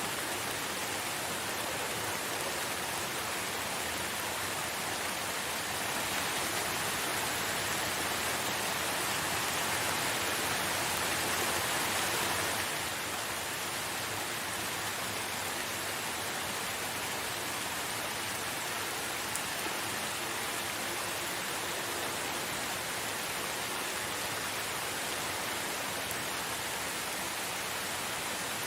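Steady rain falling, an even hiss. It swells a little louder for several seconds and then drops back suddenly a little before the midpoint.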